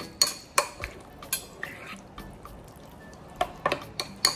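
A metal spoon stirring tzatziki in a ceramic bowl: the spoon clinks sharply against the bowl's sides under the wet squelch of yoghurt and grated cucumber. The clinks come in an irregular run, pause in the middle, and pick up again near the end.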